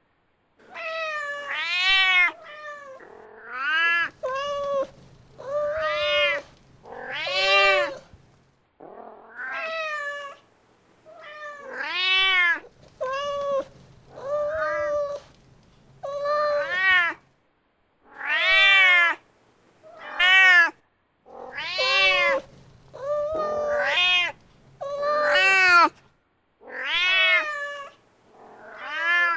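A mother cat calling for her kitten: a long run of meows, each rising and then falling in pitch, coming about one every second or two with short pauses between.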